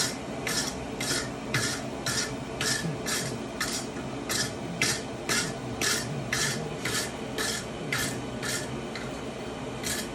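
Hand file stroking on steel, a rhythmic rasp of about two and a half strokes a second.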